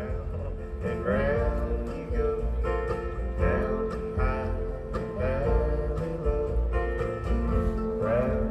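Live acoustic folk-bluegrass music: acoustic guitar and other plucked strings playing under a woman's sung melody, her phrases entering about a second in, again mid-way and near the end.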